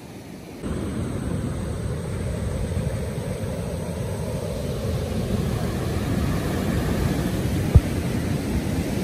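Wind buffeting the phone's microphone over the wash of breaking surf: a steady, rumbling noise that starts suddenly less than a second in. A single sharp knock comes near the end.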